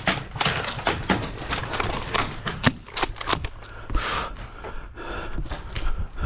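Footsteps of a player on the move with the clatter of carried gear: a run of irregular sharp clicks and knocks, several a second.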